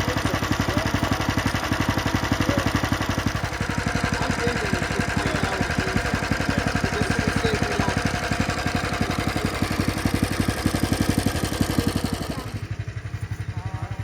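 An engine running steadily with an even, fast beat of firing pulses. It drops in level near the end.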